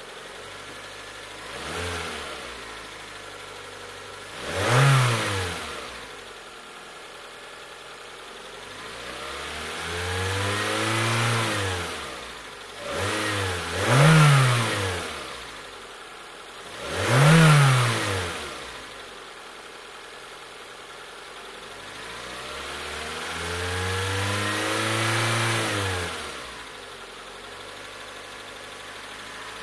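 Nissan Primera's four-cylinder petrol engine idling and being revved repeatedly: several quick, sharp blips of the throttle and two slower, longer rises in revs that fall back to idle.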